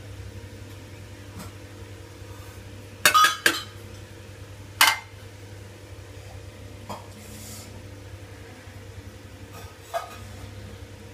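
Steel spoon clinking against a stainless-steel pressure cooker and a steel plate as cooked dal rice is scooped out to taste: a couple of sharp clinks about three seconds in, a loud one near five seconds, then fainter taps. A low steady hum runs underneath.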